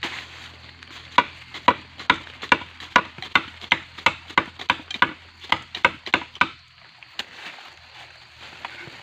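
Gombong bamboo stem being hacked open: about fifteen quick, sharp chopping strikes, two to three a second, starting about a second in and stopping after about six seconds. The stem is being opened to look for water inside its internodes.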